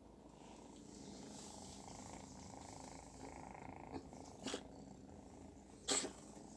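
Domestic cat purring steadily, with two brief sharp noises about four and a half and six seconds in, the second the loudest.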